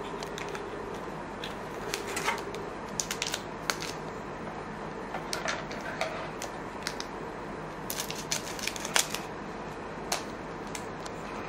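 Trading cards and a foil pack wrapper being handled, with irregular light clicks and crinkles.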